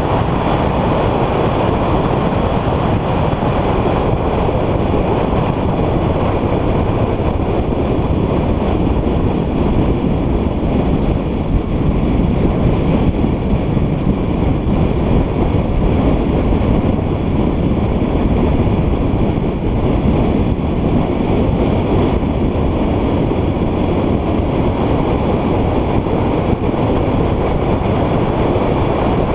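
Car driving at speed on a race track: a steady rush of wind and road noise, with the car's engine running beneath it.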